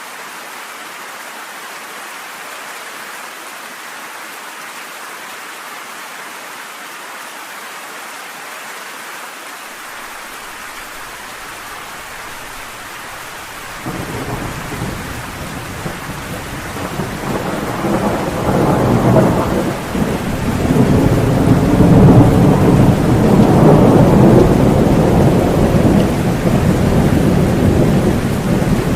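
Steady rain falling, then about halfway through a long roll of thunder begins suddenly and builds into a deep, loud rumble that keeps going under the rain.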